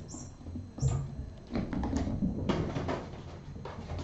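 Kittens at play: a string of irregular knocks, bumps and scuffles, with sharper knocks about a second in and about two and a half seconds in.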